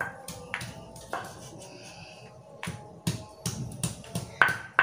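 Stone pestle striking and grinding spice paste in a stone mortar (Indonesian cobek and ulekan): a run of irregular sharp knocks, the loudest near the end.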